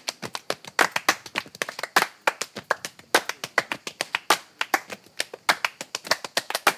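A group doing body percussion: hand claps and slaps on the chest in a fast, steady interlocking rhythm, several sharp hits a second with louder accents.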